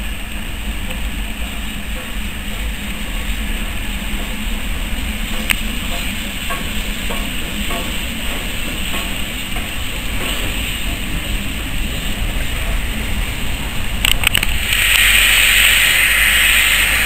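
Steam locomotive in a station: a steady low rumble and faint hiss, then about 15 seconds in a loud hiss of escaping steam starts and holds.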